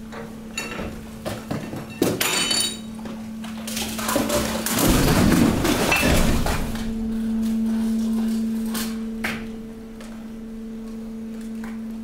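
Hydraulic waste press running with a steady hum. Mixed waste crunches, cracks and snaps as glass and plastic break, loudest about four to six seconds in. After that the hum grows stronger and a higher tone joins it.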